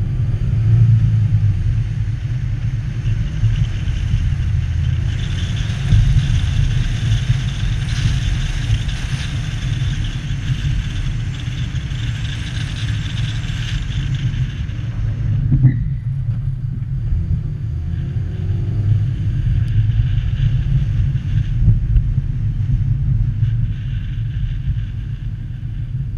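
A car driving on city streets: a steady low rumble of engine and road noise, with a higher hiss that swells about three seconds in and falls away about fifteen seconds in. There is a brief sharp sound near sixteen seconds.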